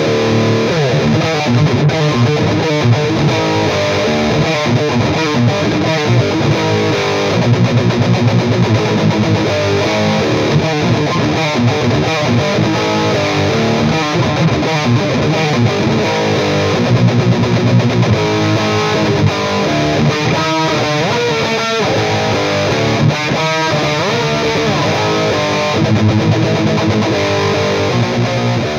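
Electric guitar played through a PRS Archon 50-watt amp head with plenty of gain: a continuous run of heavily distorted riffs and chords.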